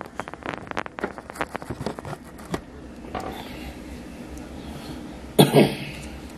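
A man coughs, two quick bursts about five seconds in, the loudest sound here. Before it, in the first few seconds, comes a run of small clicks and knocks from handling things close to the microphone.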